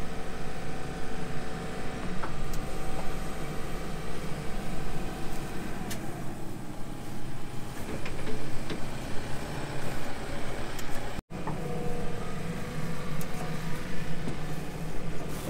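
Excavator's engine running steadily while the machine digs out the septic-tank hole.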